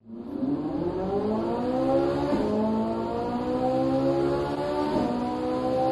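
Ferrari 458 Italia's 4.5-litre naturally aspirated V8 accelerating hard, its pitch climbing steadily and briefly dipping at two quick upshifts, about two and a half seconds apart.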